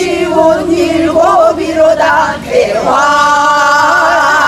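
A group of women singing a Korean folk song together in unison, the melody wavering and bending, then settling into one long held note about three seconds in.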